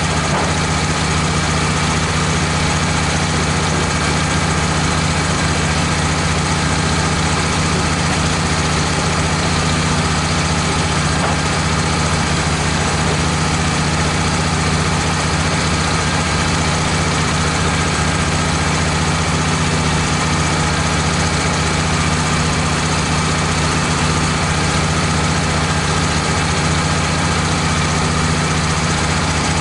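Wood-Mizer LT15 band sawmill running steadily, its engine holding an even pitch.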